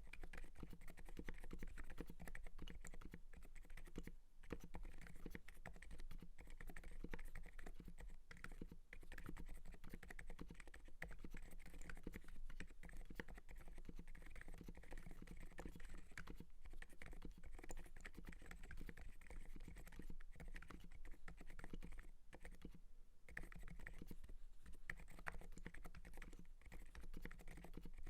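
Continuous typing on an Everglide SK87 mechanical keyboard with lubed Alpaca silent switches, a carbon plate and MDA Big Bone PBT keycaps: a dense run of keystrokes, with brief pauses about four seconds in and again about three-quarters of the way through.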